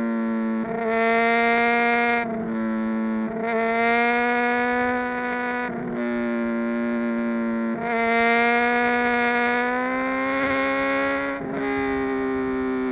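Honda CBR600RR inline-four engine through a Mivv X-Cone dual exhaust, running at a steady high-pitched drone while cruising. It swells louder and eases back every few seconds, with the pitch holding nearly constant and creeping slightly upward.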